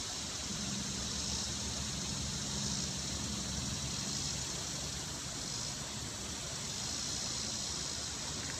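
Steady outdoor background hiss, brightest in the high range, with a faint low hum from about half a second in until about four seconds in.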